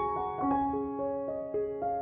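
Background piano music: single notes played one after another, each ringing on as the next comes in.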